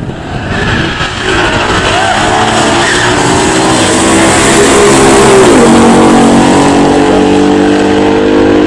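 Two pure-stock V8 muscle cars launching and accelerating at full throttle down a drag strip, one a 1968 Dodge Super Bee with a 426 Hemi and an automatic transmission. The engine note climbs in pitch, drops at an upshift about five and a half seconds in, then climbs again.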